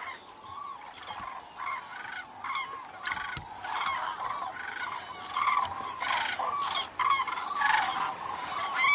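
A flock of common cranes calling: many trumpeting calls overlap in a continuous chorus that grows somewhat louder about three seconds in.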